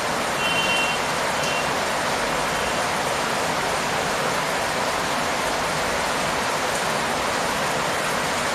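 Steady rain falling on leaves and the ground, an even hiss. Two brief high tones sound faintly about half a second and a second and a half in.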